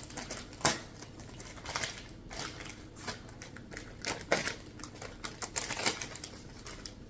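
Plastic zipper storage bag being handled and pulled open: irregular crinkles and sharp clicks, with the loudest click about a second in.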